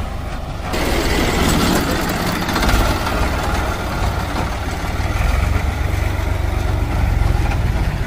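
HMT 3522 tractor's diesel engine idling steadily, a low even rumble.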